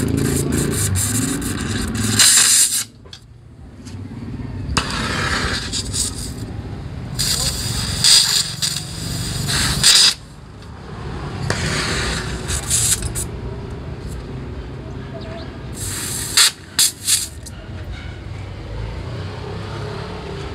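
Oxy-acetylene torch hissing as it gas-welds the steel scooter frame tube with a filler rod; the hiss swells and drops off in spells of a second or more, with a few short loud spikes near the end.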